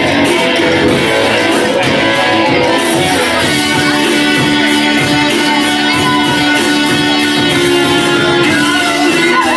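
Loud music with a steady beat and sustained instrumental notes.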